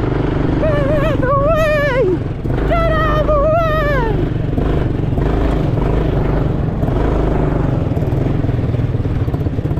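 A quad bike's engine runs steadily at speed over rough sand, with wind noise on the microphone. In the first half two long, high-pitched yells rise over it, their pitch wavering as the quad bounces.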